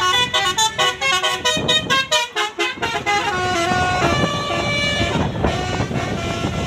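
Basuri telolet multi-tone bus horn playing a tune: a quick run of short tooting notes jumping in pitch for about three seconds, then slower, longer held notes.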